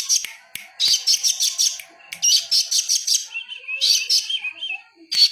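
Songbird singing rapid, high chattering phrases of about a second each, with short pauses between them.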